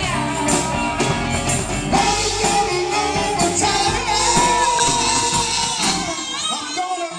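Live rock band playing: electric guitars and a drum kit under several voices singing. About six seconds in the low end falls away, leaving mostly the voices.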